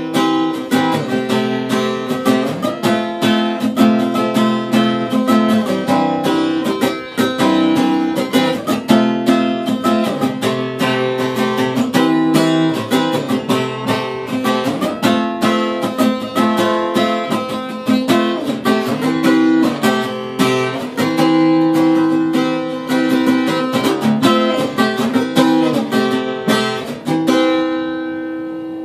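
Acoustic guitar played solo, chords strummed quickly and evenly with ringing notes. Near the end the playing stops on a last chord left to ring and fade.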